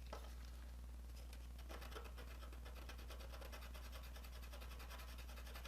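Sandpaper scratching back and forth on a diecast metal toy car body in fast, even strokes, with a steady low hum underneath.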